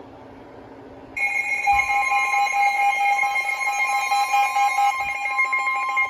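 Weather radio alert alarm: after about a second of low hiss, a loud, steady electronic tone with several fixed pitches comes on and holds. It signals an incoming new warning, here a flash flood warning.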